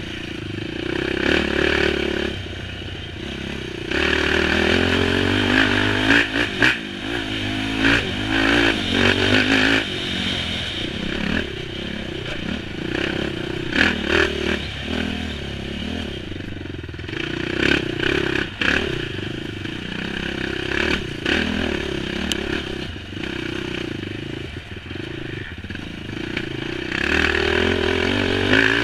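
Engine of an off-road racing machine ridden hard, heard from on board, revving up and down as the throttle is worked through the turns. Scattered knocks and rattles come from the machine running over rough ground.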